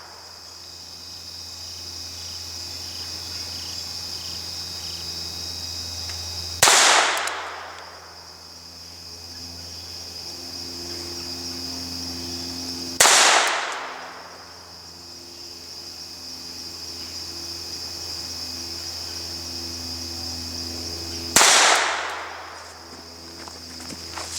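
Three single gunshots spaced several seconds apart, each ringing off with a trailing echo. Insects keep up a steady high-pitched buzz throughout.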